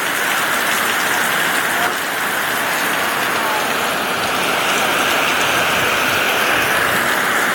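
Heavy tropical-storm rain driven by strong wind, a steady loud hiss.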